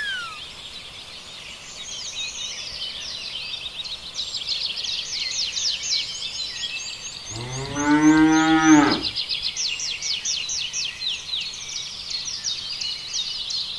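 A zebu cow moos once, about seven seconds in: a single call of about a second and a half that rises and then falls in pitch. Constant high chirping runs underneath.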